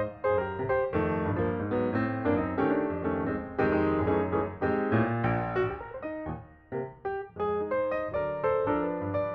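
Background piano music, a steady flow of notes with a dip about six seconds in.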